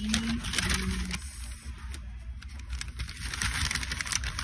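Paper takeout bag rustling and crinkling as a hand rummages inside it among the wrapped food, with dense, irregular crackles.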